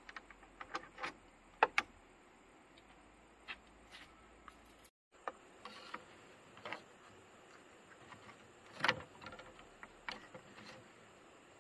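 Scattered small clicks, taps and short scrapes of hand work on bamboo poles, with binding wire twisted tight around the poles with pliers. The sound cuts out for a moment about five seconds in, and there is a louder scrape about nine seconds in.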